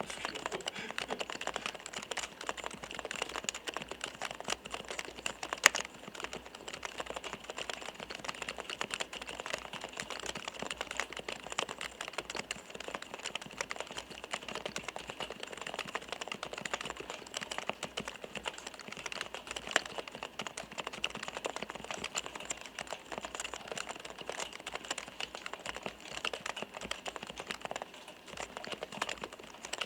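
Continuous typing on a Topre REALFORCE R3 keyboard with electrostatic capacitive (Topre) switches: a dense run of soft koto-koto clacks as the keys bottom out. A couple of sharper, louder key strikes stand out, about six seconds in and again past the middle.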